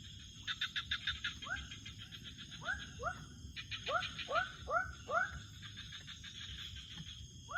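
Wild animals calling, a chorus: runs of short upward-sliding calls, several in quick succession, alongside fast high trilling pulses, with a steady low rush beneath.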